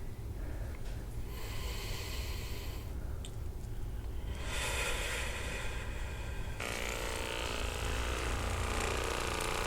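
Electric handheld massager running against a person's back: a steady low hum that turns louder and rougher about halfway through.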